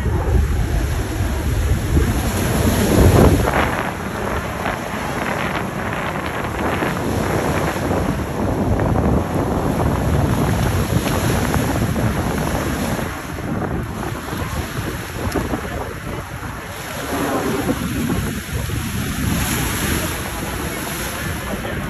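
Wind buffeting the microphone over a steady rushing roar, heaviest and lowest in the first few seconds.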